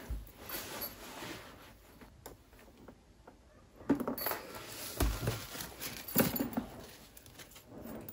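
A tote bag and the things inside it being handled: irregular rustling and soft bumps, with sharper knocks about four, five and six seconds in.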